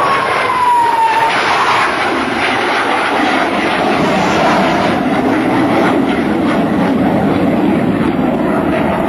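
F-104 Starfighter's single J79 turbojet on a low flyby. A high whine drops in pitch during the first second as the jet goes past, then the jet's roar carries on, sinking lower as it moves away.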